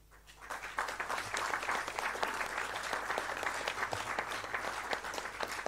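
Audience applauding: many hands clapping, building up within the first second and then holding steady.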